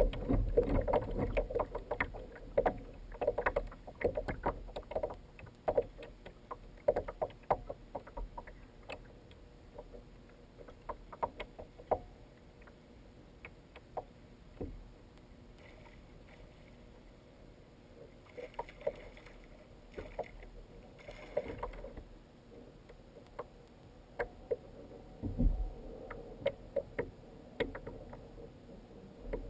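Water slapping and knocking against a plastic kayak hull, heard as many short irregular clicks and taps, dense for the first dozen seconds and sparser after, with a couple of low bumps near the end.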